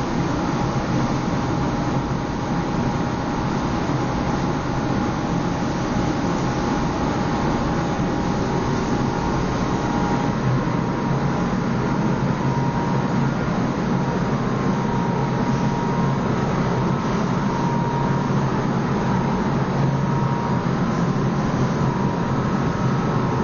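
Freezer compressor motors running together, a steady mechanical hum with a few faint steady tones.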